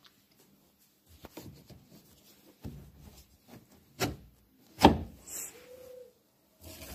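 Hands handling spun laundry in a front-loading washing machine's drum: scattered rubbing and light knocks of cloth and fingers against the drum and rubber door seal, with two sharper knocks about four and five seconds in, then a brief squeak.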